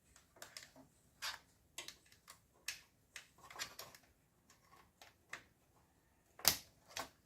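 Desktop computer parts being handled: a string of light clicks and scrapes of plastic and metal, with two sharper clicks near the end.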